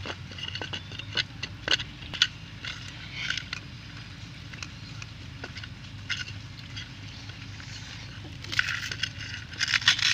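Fingers crumbling soft bread and crushing sugar biscuits on a plate: scattered small crackles and clicks, with a denser run of crunching near the end as a biscuit is broken up. A steady low hum sits underneath.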